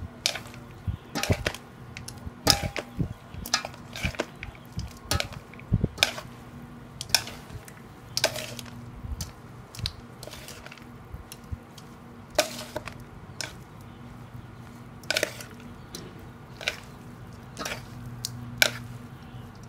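Wooden chopsticks knocking and clinking against a large metal bowl while a shredded salad is tossed, in sharp irregular knocks about one or two a second. A low steady hum runs underneath.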